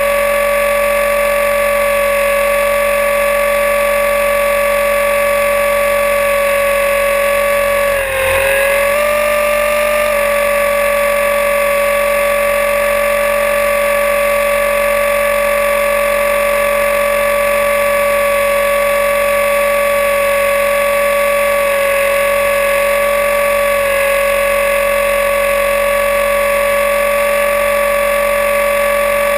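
Align T-Rex 500E electric RC helicopter's motor and rotor drive whining steadily at hover, heard close up from a camera mounted on its landing skids. About eight seconds in, the whine dips briefly in pitch and then recovers.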